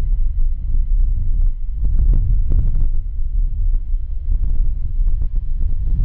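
Strong, gusty wind buffeting the microphone in an uneven low rumble, with the faint steady whine of an Airbus A320neo's jet engines underneath as the airliner rolls along a wet runway.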